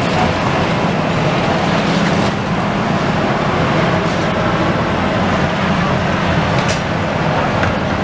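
Diesel engines of demolition excavators running steadily, with a short sharp clank about seven seconds in.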